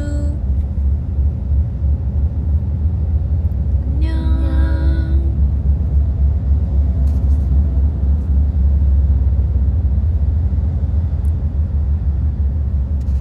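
Steady low rumble of a moving vehicle, heard from inside the cabin. About four seconds in, a woman's voice gives a drawn-out note lasting about a second.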